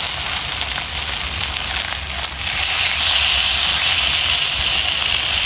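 King fish (vanjaram) steaks sizzling in hot sesame oil in a frying pan as they are turned over. The sizzle grows louder about three seconds in, over a low steady rumble.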